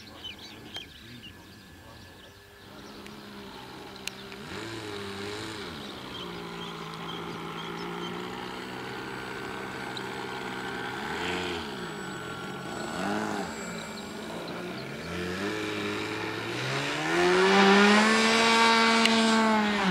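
Electric motor and propeller of a HobbyKing Cloudsurfer RC glider in flight, a pitched hum whose pitch dips and recovers a few times with the throttle. It rises sharply and is loudest near the end as the plane passes low along the runway, then drops in pitch as it goes by.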